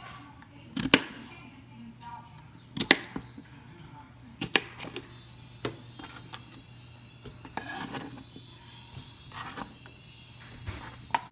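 Knife chopping cucumbers on a cutting board: single sharp knocks of the blade hitting the board, one every second or two, the loudest about a second in.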